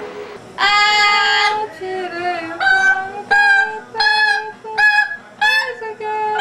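Amazon parrot calling in a sing-song, voice-like way: one long held note about half a second in, then a steady run of short notes, about one every 0.7 seconds, each bending up and down in pitch. A low steady tone sounds underneath throughout.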